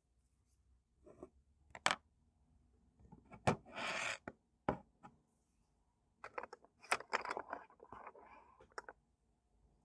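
Small knocks and clicks of art supplies being handled on a desk, with a short scraping rustle about four seconds in and a run of small clicks near the end.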